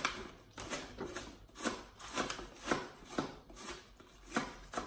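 Kitchen knives cutting against a cutting board, roughly two sharp strokes a second and somewhat uneven, as a head of cabbage is shredded fine and tomatoes are sliced.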